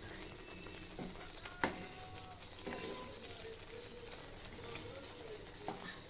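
Thick curry gravy simmering in a nonstick pan while a wooden spatula stirs it, with a few sharp knocks of the spatula against the pan, the loudest about a second and a half in.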